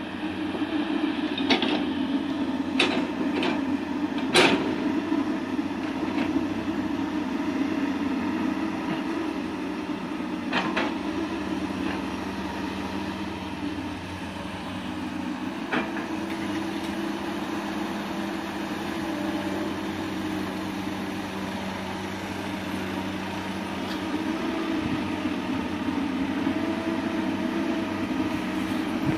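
Heavy diesel engine of an excavator or dump truck running steadily, with several sharp metallic knocks in the first few seconds and a couple more later.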